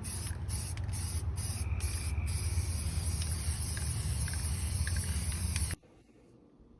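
Aerosol spray paint can hissing, first in several short squirts, then in one long continuous spray that cuts off suddenly near the end, over a low rumble.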